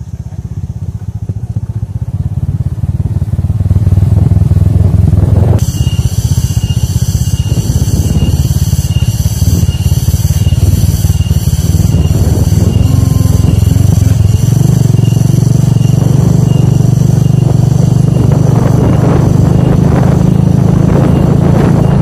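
Motorcycle engine running steadily while riding a dirt forest track. It swells up over the first few seconds.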